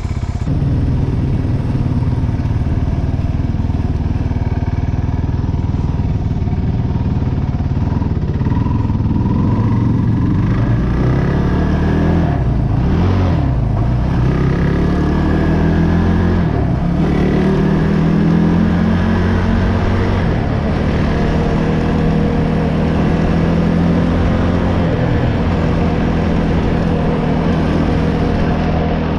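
ATV engine running under throttle, its pitch dipping and climbing back twice near the middle as the revs drop and pick up again.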